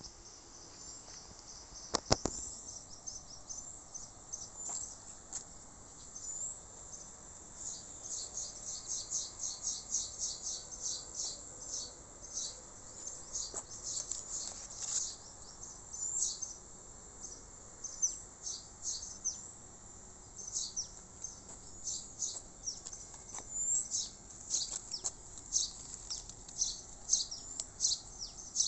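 Small birds chirping: quick, high calls packed close together, busier after the first several seconds. A single sharp knock sounds about two seconds in.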